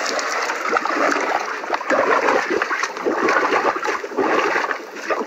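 Water splashing and sloshing in a hole cut in lake ice, stirred up by a person who has just jumped in.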